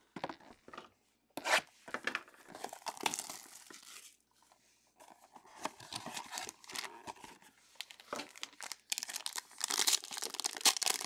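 Plastic card sleeves and the crinkly foil wrapper of a trading-card pack rustling as cards are handled and the pack is torn open. It comes in uneven bursts, pauses briefly about four seconds in, and is thickest and loudest near the end.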